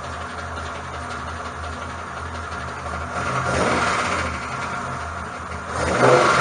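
Fairlady 240Z's L24 straight-six running steadily, with two brief louder swells about three and a half and six seconds in.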